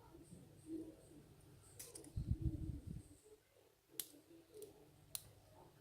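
Faint, sharp clicks of small metal lock parts, such as pins and the disassembled lock core, being handled. A low bump of handling noise comes about two seconds in.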